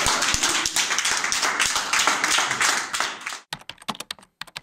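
Clapping and commotion in a courtroom. About three and a half seconds in, it cuts off and gives way to a run of quick keyboard-typing clicks, a typing sound effect as an on-screen caption appears letter by letter.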